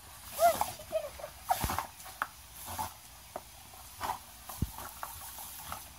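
A dog snapping and gulping at a garden-hose spray, with water splattering in irregular bursts and a few sharp jaw clicks. A short high squeal comes about half a second in.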